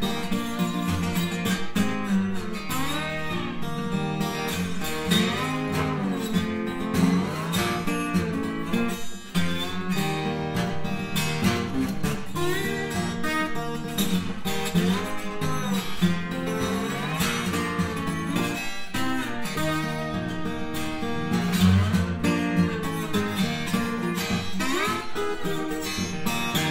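Taylor 455 twelve-string acoustic guitar played with a slide: a steady instrumental tune whose melody notes glide up and down in pitch over picked accompaniment.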